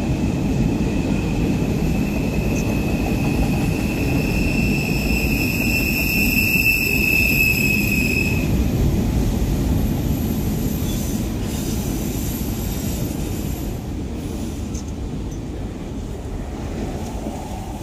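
Freight train cars rolling past, the wheels rumbling on the rails, with a steady high-pitched wheel squeal through the first half. The rumble fades away as the end of the train goes by.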